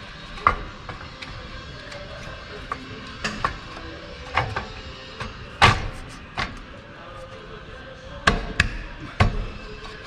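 Irregular metallic knocks and clinks of a clutch plate, clutch aligning tool and pressure plate being handled and fitted against an engine's flywheel, the loudest about halfway through.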